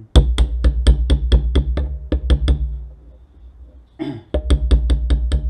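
Hammer rapidly tapping a punch to drive the pivot sleeve out of a motorcycle brake lever clamped in a vise, metal on metal at about five blows a second. A burst of about a dozen blows, a pause of over a second, then another quick run of blows.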